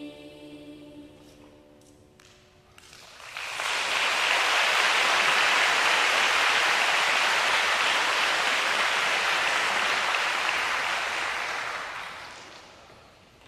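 A children's choir's last held chord dies away over the first couple of seconds. About three seconds in, audience applause breaks out and runs steadily, then fades out near the end.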